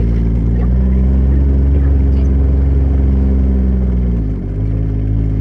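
Tractor engine running steadily under way, its note changing about four seconds in.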